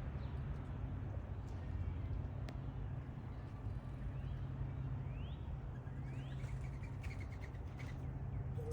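Small backyard birds chirping: three short rising calls about halfway through, then a quick run of chirps around seven seconds in, over a steady low rumble with a few scattered faint clicks.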